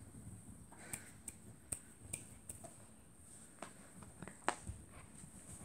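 Faint, irregular sharp clicks and light taps, about a dozen, from a corgi puppy's play with a plush toy; the loudest comes about four and a half seconds in.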